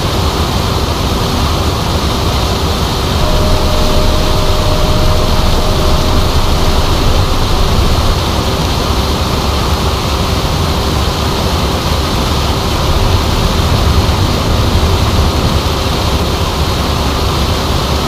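Combine harvesting standing corn: a steady, loud wash of machine noise from the running combine and its corn head taking in stalks, with a low rumble and a faint steady hum underneath.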